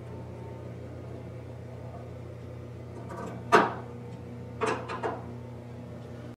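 Hand work on the metal rewinder-motor bracket being screwed to the side frame of a foiling machine: one sharp knock about three and a half seconds in, then a few lighter clicks about a second later, over a steady low hum.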